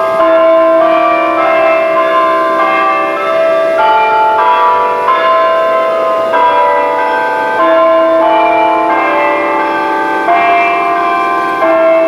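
Church tower bells playing a tune. Pitched bells are struck one after another, a new note about every half second to second, and each tone rings on under the next.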